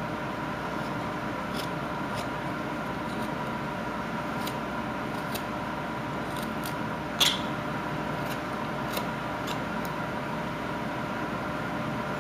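Carving knife taking small cuts in wood: scattered faint clicks and scrapes, with one sharper click about seven seconds in, over a steady background hum.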